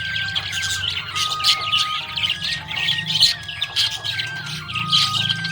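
Budgerigars chirping and chattering in quick, overlapping calls without a break, with background music underneath: a simple stepping melody over a low, steady bass.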